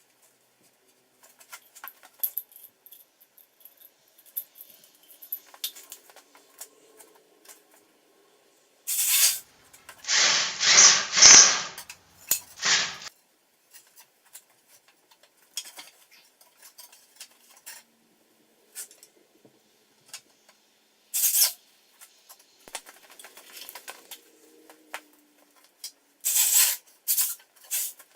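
Scattered metallic clinks, taps and knocks from hand work with tools and hardware, with louder bursts of noise: a stretch of a few seconds around the middle, a short one later, and a quick cluster near the end.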